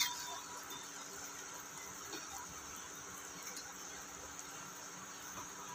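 Gulgule, fritters of jaggery and wheat-flour batter, deep-frying in a kadhai of hot oil: a steady, low sizzling.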